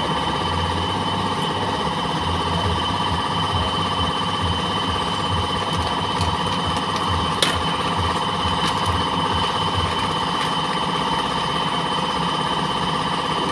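A motor running steadily, with an uneven low throb under a steady high whine. There is one sharp click about seven and a half seconds in.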